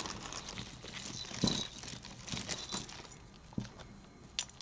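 Costume jewelry being handled and sorted: a scatter of light clicks and clinks of plastic beads and chains knocking together, a little louder about a second and a half in.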